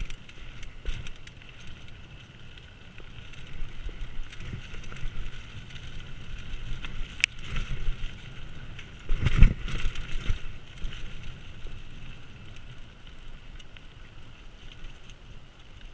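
Mountain bike ridden fast down a dirt singletrack: tyres running on dirt and the bike rattling and clicking over bumps, with a heavy thump a little past halfway.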